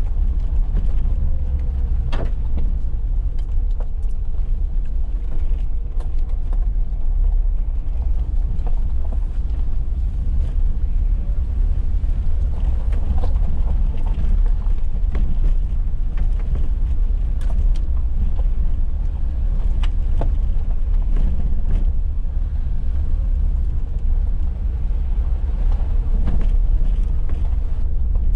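Suzuki Jimny driving along a rough lane: a steady low engine and road rumble, with scattered short knocks and rattles from the bumps.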